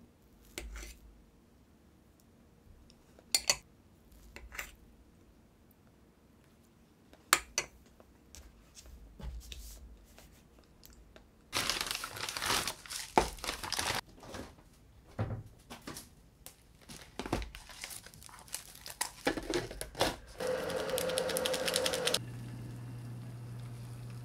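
A few sharp clicks of a fork against a plate, then a paper grocery bag crinkling loudly for a couple of seconds as it is opened, followed by scattered knocks of things being handled. Near the end comes a few seconds of steady rushing as hot water pours from an electric kettle into a cup noodle.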